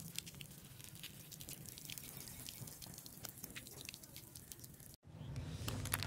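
Faint, irregular pattering and dripping of a thin water jet from a pierced, water-filled balloon landing on concrete; the sound cuts off abruptly about five seconds in, leaving a low steady hum.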